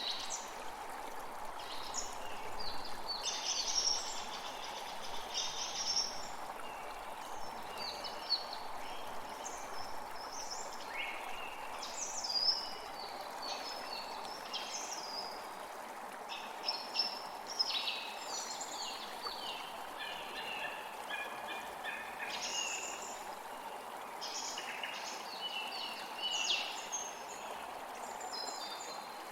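Small forest creek flowing with a steady rushing sound, while several songbirds sing and chirp in short, varied phrases throughout.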